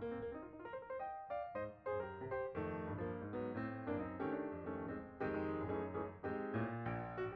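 Background piano music: a steady run of notes.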